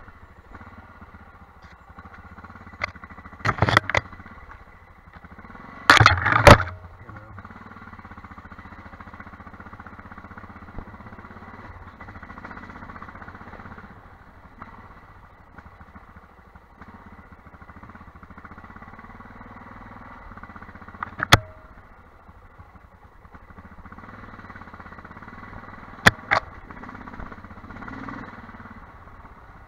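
Armstrong MT500 trail bike's single-cylinder engine running steadily at low, even speed on a rough trail, with several short, loud clatters, two close together about 4 and 6 seconds in, then one near the middle and a pair near the end.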